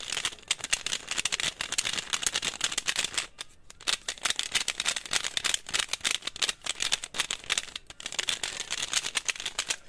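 Rubik's cube being turned fast: a dense run of plastic clicks and clacks as the layers snap round, with a brief pause about three and a half seconds in and another near eight seconds.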